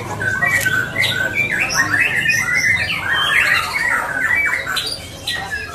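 White-rumped shama (murai batu) singing: a rapid, varied run of short whistled notes and quick pitch slides, one after another without a pause.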